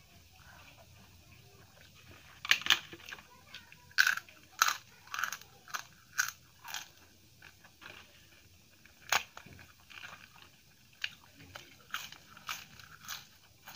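Close-up eating: a series of short, sharp crunches as crisp papadam is bitten and chewed, with quieter chewing of rice and curry between them.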